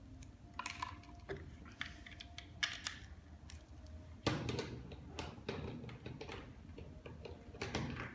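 Scattered light clicks and taps of a plastic alarm clock and its charging cable being handled and plugged in, with one louder knock about four seconds in.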